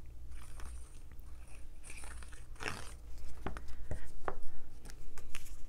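Liquid glue being squeezed from a plastic bottle onto cardstock, with soft paper rustling and a few small clicks as the panel is handled.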